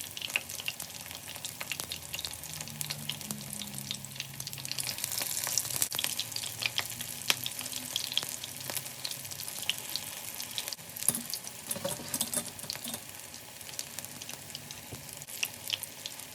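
Batter-coated pumpkin flower fritters frying in hot oil in a frying pan: a steady sizzle with many small pops and crackles.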